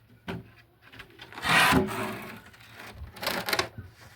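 Wood rubbing and scraping against wood: a light knock, then two long scraping strokes, as a tight-fitting piece is worked.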